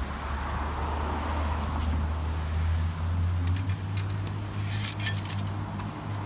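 Low, steady hum of a motor vehicle engine, stepping up slightly in pitch about halfway through, with a few light clicks later on.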